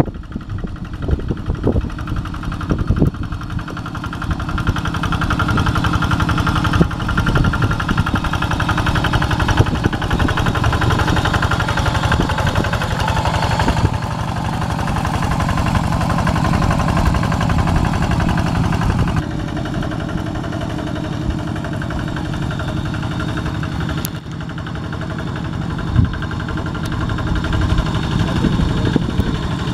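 Kubota RD85 single-cylinder diesel engine on a walking hand tractor running steadily under load, its low rapid firing beat getting louder over the first few seconds as the machine comes closer.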